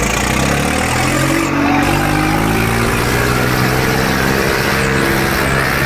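Tractor diesel engines running hard under heavy pulling load as two tractors, a Swaraj 855 close by and a Preet 3549, strain against each other. The engine note rises slightly in the first couple of seconds, then holds steady.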